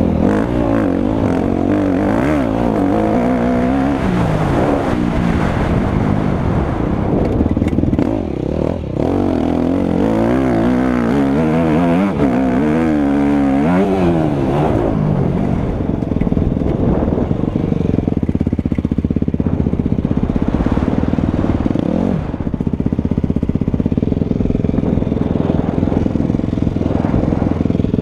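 Motocross bike engine heard from a camera mounted on the bike, revving hard under way. Over the first half its pitch climbs and drops again and again as it runs through the gears, then it holds a steadier note.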